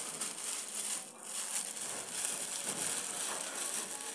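Continuous rustling of cloth and loose flower petals being shifted, with a brief break about a second in.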